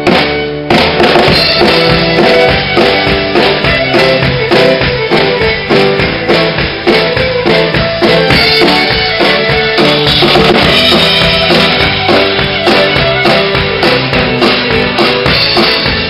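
Live band music: a fiddle played with a bow, carrying the melody over a full drum kit keeping a steady beat. The drums fill in about half a second in.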